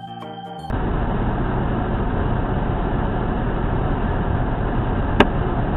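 Steady rumble of a moving car's road and engine noise, with one sharp click about five seconds in. Organ music cuts off just before the noise starts.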